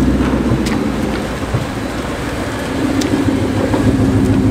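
Ford Mustang GT's 5.0 V8 running at low speed with a steady deep rumble.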